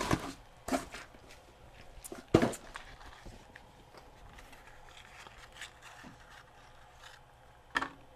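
Quiet handling noises as a small vacuum tube is taken out of its worn cardboard box: faint rustling and scraping with a few light knocks, the loudest about two and a half seconds in and another near the end.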